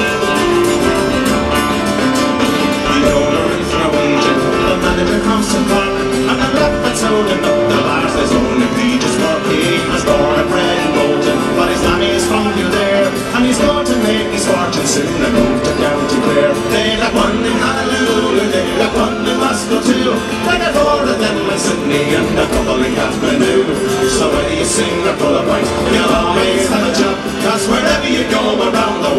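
Live Irish folk band playing an instrumental break, with strummed acoustic guitars to the fore.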